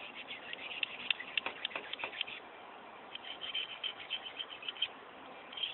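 Knife blade scraping across a diamond sharpening stone in quick strokes: two runs of fine, scratchy rasps with a short pause between them.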